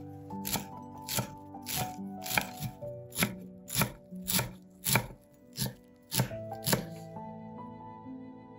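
Kitchen knife chopping fresh parsley on a wooden cutting board: about a dozen even chops, under two a second, which stop about seven seconds in.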